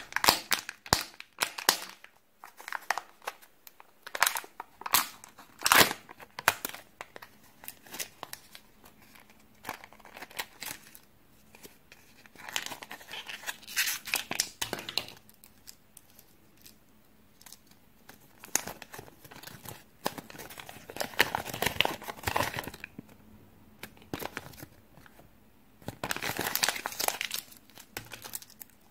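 Hands peeling the seals off Kinder Joy plastic egg halves and tearing open the toys' plastic wrappers: crinkling and tearing, with many sharp clicks and snaps in the first few seconds and longer crinkly stretches later.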